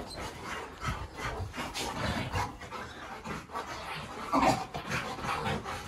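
A golden retriever and a beagle panting and scuffling on a bed as they jump up and paw at a person in an excited greeting, with fur and bedding rubbing. A brief louder noise about four and a half seconds in.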